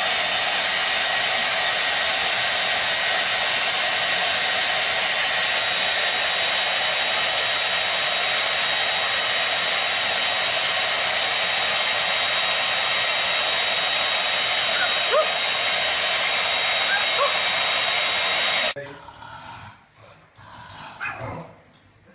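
Loud, steady rushing noise with a faint high whine, like a blower or hair dryer running. It cuts off abruptly near the end, leaving only faint, scattered sounds.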